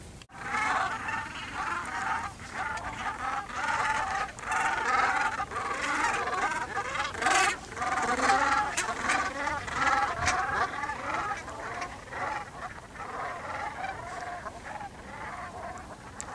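A large flock of Canada geese honking, many calls overlapping at once. The chorus starts abruptly, is loudest over the first half and thins out toward the end.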